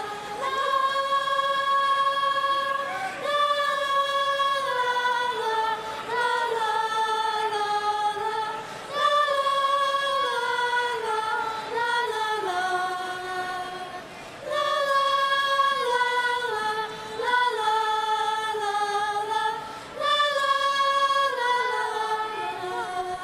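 A children's choir singing a cappella: slow phrases of long held chords in several parts, with a short break between phrases every few seconds. It sounds out into a large arena.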